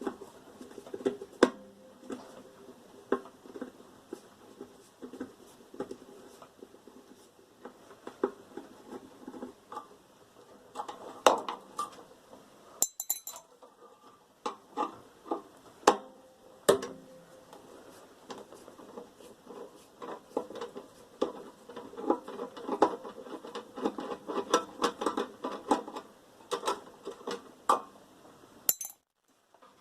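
Irregular clicks, scrapes and metallic clatter of a microwave oven being taken apart by hand: a screwdriver working out screws and parts knocking against the sheet-metal casing, with a few louder knocks.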